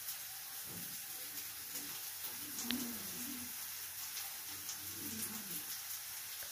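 Thin potato slices sizzling softly in mustard oil on a flat tawa over a gas flame, with a single small click nearly three seconds in.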